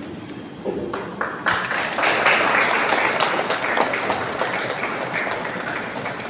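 A few scattered claps, then an audience breaking into applause about a second and a half in, loudest soon after and slowly fading.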